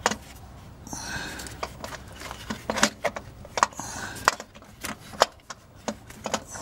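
Scattered light clicks and knocks with some rustling at irregular intervals: a hand fumbling among metal parts and wiring under a car while reaching for the starter's wire connections, with a handheld camera moving close by.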